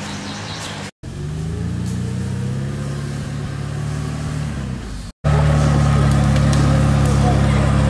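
LuAZ-969 Volynets off-roader's engine running hard under load as it pushes through mud, holding a fairly steady pitch. The sound cuts out briefly twice and is loudest in the last few seconds.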